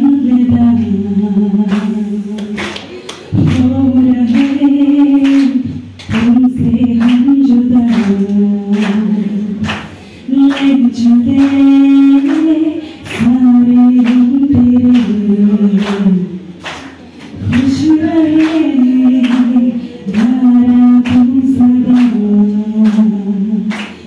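A woman singing unaccompanied into a handheld microphone, in long held phrases broken by short pauses for breath every few seconds.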